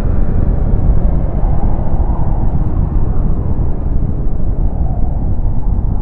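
Loud, deep rumbling noise with no clear tones, easing off slightly near the end.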